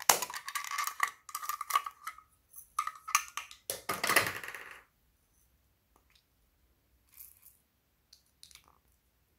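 Hard plastic toy egg being handled and twisted, giving a quick run of clicks and rattles with a slight ringing for about five seconds. A few faint taps follow near the end.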